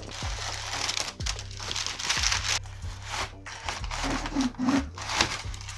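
Crumpled packing paper crinkling and rustling as hands dig through a cardboard box, in a run of sharp crackles, over background music.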